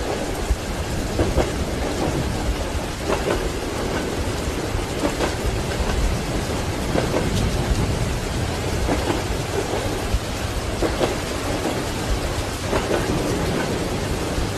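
Steady heavy rain with a continuous low thunder rumble, mixed with train wheels clacking over rail joints in repeated knocks about once or twice a second.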